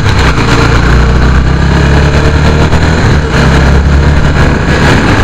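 Honda CB150 motorcycle engine running while under way, its note shifting slightly a couple of times.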